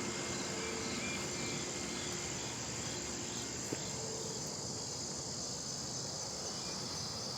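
Steady high-pitched drone of insects chirping in the garden's vegetation, with one faint click a little over halfway through.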